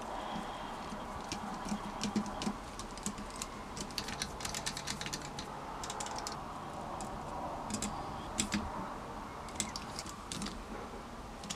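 Light, irregular clicks and taps of a hex driver and small metal parts as screws are driven into a scale RC truck's metal chassis rails, over a steady low hiss.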